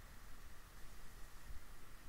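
Faint room tone: a steady hiss and low hum from the recording microphone, with no distinct event.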